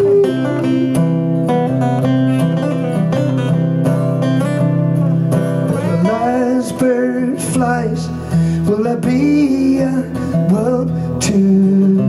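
Two acoustic guitars playing a song together, with a man singing over them from about halfway in.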